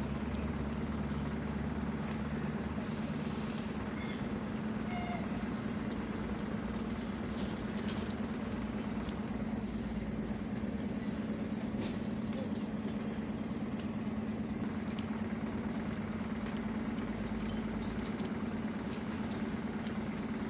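A steady low hum over constant outdoor background noise, with a few faint clicks; no train passes close by.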